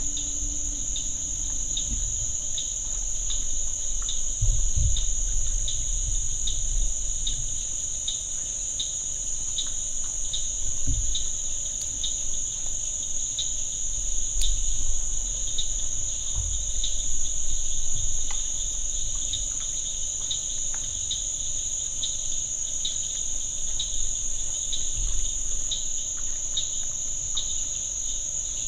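Night insects: a steady high-pitched drone with cricket chirping pulsing at a regular rhythm beneath it, and faint low rumbles and thumps.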